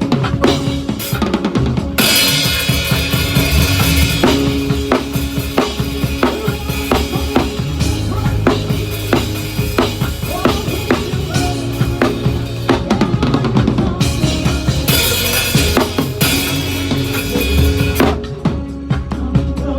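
Drum kit played in a band sound check: kick, snare and rimshot strokes in a steady groove. Cymbals wash in about two seconds in and again near the fifteen-second mark, over held bass notes.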